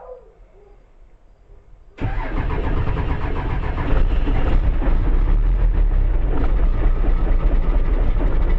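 Cummins 12-valve 5.9 L inline-six diesel cold-started: about two seconds in, the starter cranks it suddenly, and it catches and runs, louder from about four seconds in.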